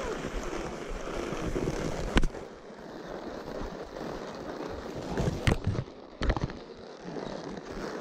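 Wind buffeting and rubbing on a chest-mounted GoPro's microphone during a horseback ride, a rough steady rumble, with a few sharp knocks: one about two seconds in and two more between five and six and a half seconds.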